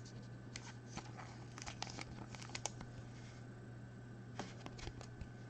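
Faint handling of trading cards: scattered soft clicks and rustles of card stock being moved and turned, in two clusters, over a steady low hum.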